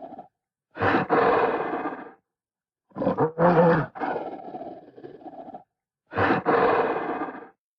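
King Kong giant-ape roar sound effects: three separate roars, each with a sharp start that then trails off, with dead silence between them.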